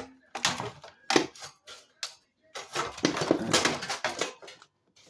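Irregular clattering, knocks and scraping from the housing of a battery charger being handled and worked loose during a tear-down, in a couple of clusters.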